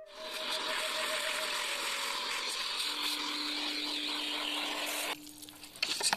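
Household vacuum cleaner running steadily as its nozzle sucks dust and grit out of the hollow cells of pumice blocks. It cuts off about five seconds in, followed by a short run of sharp, irregular spattering sounds as water is sprayed into the blocks.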